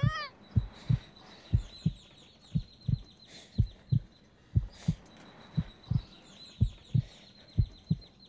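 Heartbeat sound effect: low double thumps, lub-dub, about one beat a second at a steady pace, with faint high chirping behind them.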